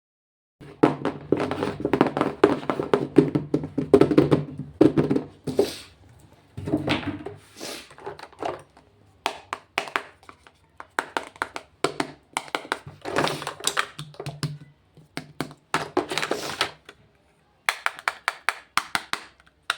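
Makeup packaging handled close to the microphone: quick taps, clicks and knocks on plastic cases and boxes, with short bursts of crinkling or rustling, in bouts with brief pauses.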